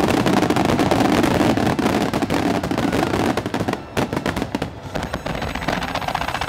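Fireworks barrage: many aerial shells bursting together and in rapid succession, a continuous mass of booms and crackling, breaking into a quick rattle of separate reports in the last couple of seconds.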